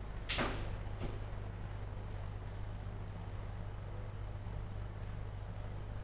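Miyako MAW-12QS top-load washing machine running a spin cycle with clothes in the tub: a steady low motor hum, a sharp loud knock about half a second in, and faint high ticks about twice a second.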